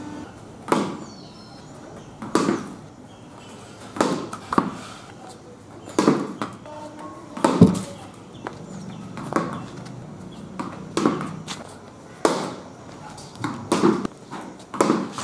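A tennis ball being bowled on a concrete floor and struck with a cricket bat: a string of sharp knocks from the ball bouncing and meeting the bat, some in quick pairs, a delivery every few seconds. The loudest knock comes about seven and a half seconds in.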